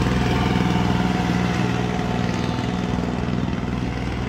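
Small farm tractor's engine running steadily as it tows a train of barrel carts.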